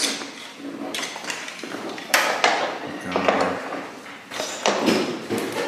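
Metal hand tools clinking and knocking as they are handled and set into drawers, with a few sharper clatters about two seconds in and near the end, and indistinct voices in between.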